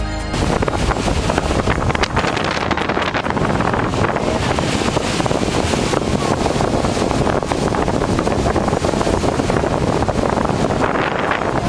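Strong wind buffeting a camcorder's microphone at the seashore, a loud rough rushing with uneven gusts, over the wash of breaking surf. It cuts in abruptly just after the start.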